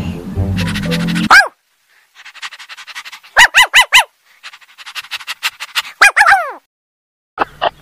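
Puppies yipping: a quick run of five high yips about three and a half seconds in and a couple of falling whines about six seconds in, among light scratchy clicking.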